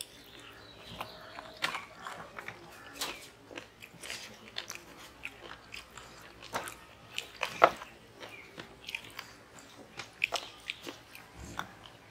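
Eating sounds from people eating rice and curry with their hands from steel plates: chewing, wet mouth smacks and fingers squishing rice against the plates, in irregular short clicks with one louder smack past the middle.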